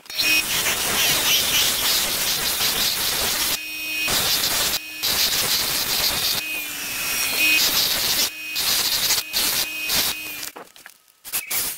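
Bench grinder running with a small metal part on the end of a rubber hose held against the wheel, a steady hissing grind with a faint hum under it. It breaks off briefly a few times as the piece is lifted and stops shortly before the end.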